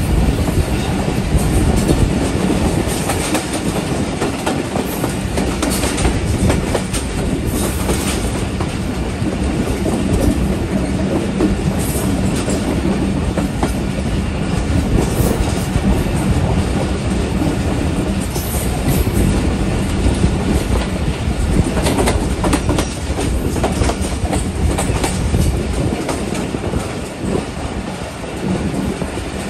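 Passenger train coach running along the track, heard from its open window: a steady rumble of wheels on rails with irregular clicks as the wheels pass rail joints.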